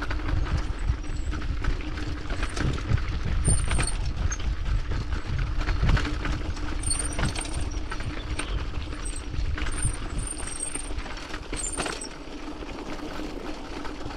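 Mountain bike rolling downhill over a rough gravel and stone track: tyres crunching and the bike rattling and clicking over the bumps, with a steady low rumble. It eases off a little near the end.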